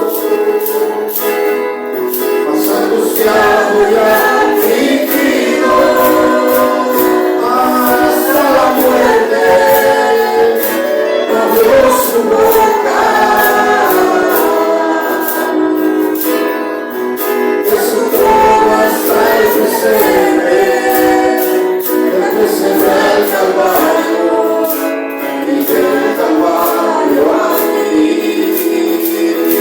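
A group of voices singing a Spanish-language worship song together, with a steady high-pitched percussion beat, typical of a tambourine.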